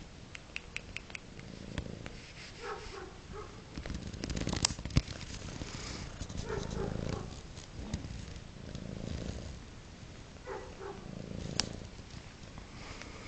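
Domestic cat purring, the rumble rising and falling with each breath, with a few sharp clicks and taps, the loudest about five seconds in.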